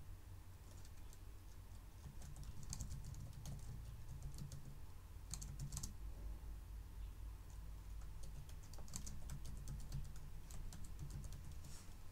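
Quiet typing on a computer keyboard, with the keystrokes coming in several quick runs and short pauses between them, over a low steady hum.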